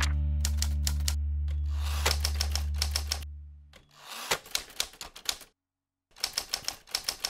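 Typewriter keystroke sound effect: rapid clacking keys in four quick bursts as lines of title text type out. A held low music chord fades away under the first half.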